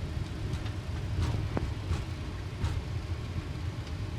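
Steady low rumble inside a Boeing 737 cockpit as the jet rolls on the ground after landing, with a few faint clicks.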